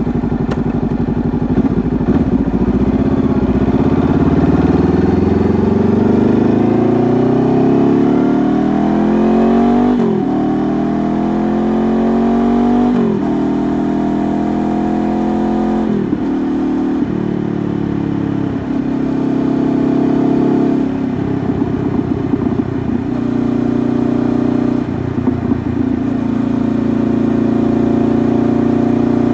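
Honda CBR500R's 471 cc parallel-twin engine through an aftermarket KO Lightning exhaust, accelerating hard with the pitch rising for about ten seconds. Three upshifts follow a few seconds apart, each dropping the pitch sharply, then the engine settles to a steadier cruise with a few brief throttle lifts. It is heard through a phone tucked under the rear seat.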